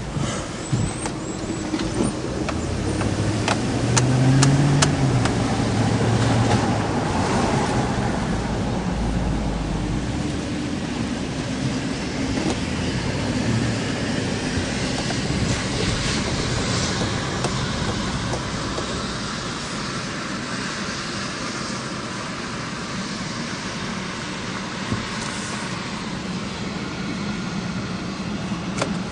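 Road vehicle noise: a steady rumble with one vehicle swelling louder and fading about four to seven seconds in, and a few sharp clicks in the first seconds.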